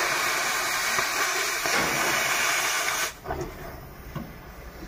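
Oxy-propane cutting torch hissing steadily on steel for about three seconds, then cutting off suddenly.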